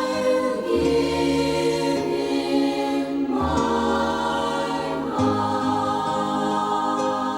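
Sacred choral music: a choir holding slow, sustained chords over accompaniment, the bass moving to a new note three times.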